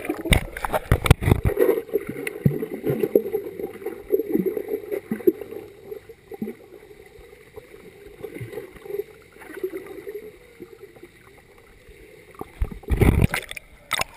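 Muffled water noise picked up by an action camera submerged in a swimming pool: irregular churning and gurgling, with splashing at the start and a loud splash about a second before the end as the camera breaks the surface.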